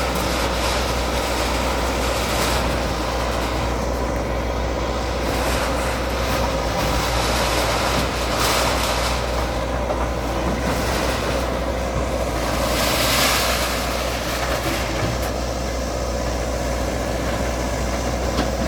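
Heavy bulldozer's diesel engine running steadily, with a few brief, louder noisy surges near the middle.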